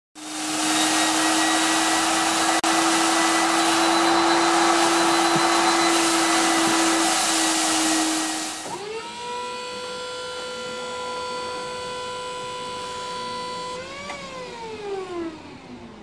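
Big Brute industrial vacuum cleaner running, a loud rush of air over a steady motor hum. About nine seconds in the air noise drops sharply and the motor's pitch steps up. Near the end the pitch falls steadily as the motor winds down.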